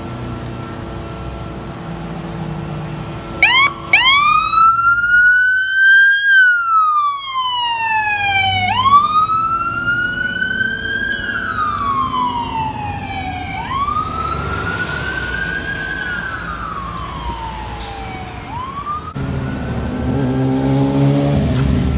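Electronic siren on a fire department battalion chief's pickup truck switches on about three and a half seconds in and sounds a slow wail, rising and falling roughly every five seconds and growing fainter as the truck pulls away. Near the end a lower sound with several tones joins, rising in pitch.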